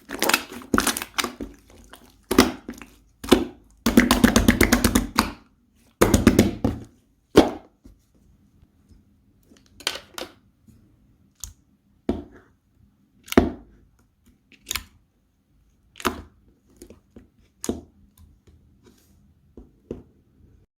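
Slime being pressed and played with by hand, giving sharp clicks and pops. A dense run of quick crackling clicks comes a few seconds in. After that there are single pops about once a second.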